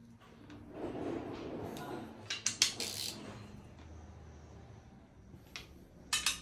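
A socket wrench turning and clinking on the steel side bolts of a 4.4 V8 diesel engine block. A rough scraping stretch is followed by a quick cluster of sharp metal clinks about two and a half seconds in, and two more clicks near the end. These are the bolts' final 45-degree angle-tightening.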